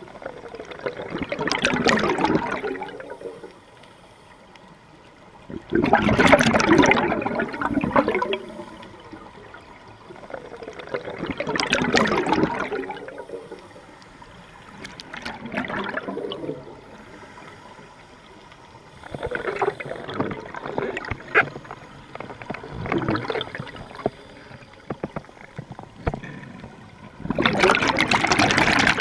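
Scuba regulator exhaust bubbles, heard underwater as loud bubbling bursts of about one to two seconds each, roughly every four to five seconds, with quieter stretches between as the diver breathes in.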